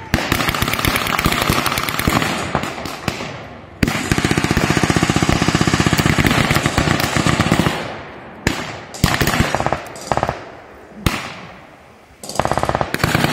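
Machine gun firing blank cartridges in long rapid bursts, the longest an evenly paced burst of about four seconds, followed by scattered single rifle shots and another short burst near the end.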